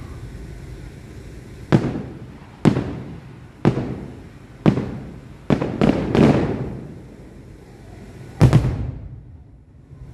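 Aerial fireworks shells bursting: about eight sharp booms, each trailing off in a rolling echo. They come in quick succession through the middle, with the loudest one near the end.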